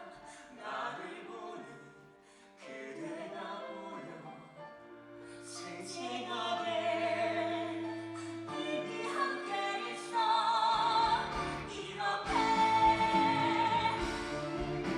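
Musical-theatre singing with accompaniment: sung lines with vibrato, starting soft and swelling, ending on a long held note near the end.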